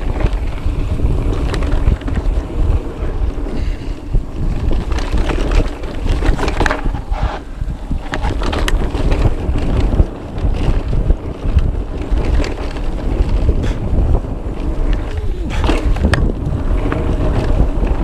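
Wind rushing over the microphone with the rumble of a mountain bike's tyres on a rough downhill trail, broken by frequent knocks and clacks from the bike rattling over bumps.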